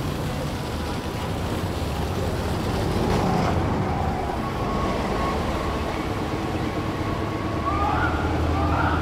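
Articulated city bus, a SOR NB 18, passing close by and driving away, its engine running steadily with tyre noise on the snowy road.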